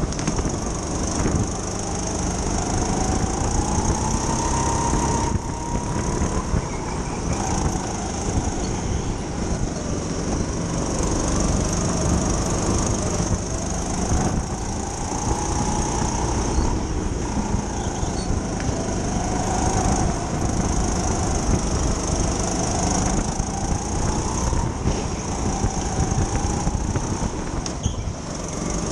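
Racing go-kart motor at speed, its pitch rising as it accelerates and dropping back every few seconds, over a steady rumble and high hiss.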